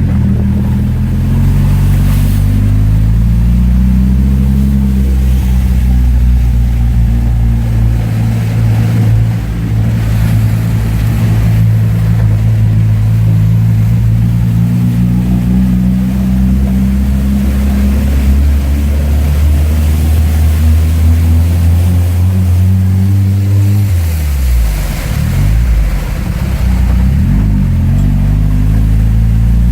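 Car engine running as the car drives, its pitch rising and falling with speed, with a drop and a rise again a little before the end.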